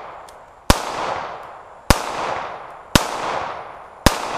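Star BM 9mm pistol firing four shots, about one a second, each sharp report trailing off in a long fading echo.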